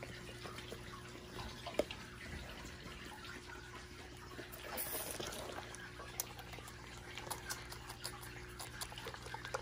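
Newborn goat kid sucking milk from a bottle: faint sucking with many small clicks, a little louder about five seconds in, over a faint steady hum.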